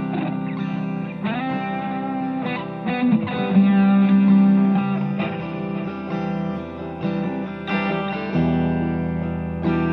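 Electric guitar played through a Belcat V35RG 35-watt amp with a 10-inch speaker on its clean channel: a looped, strummed chord pattern in an acoustic-simulation tone, with a lead line played over it.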